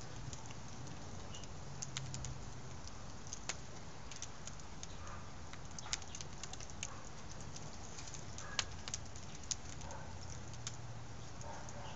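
Firewood and a wooden nutcracker burning in a steel fire ring, crackling with irregular sharp snaps and pops over a steady low rush.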